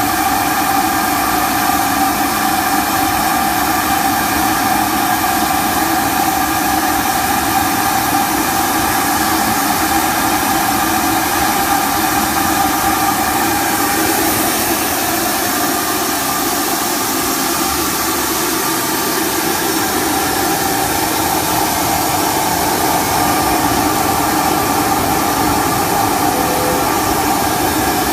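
An industrial machine running steadily: an even, loud hiss with a steady whine through it.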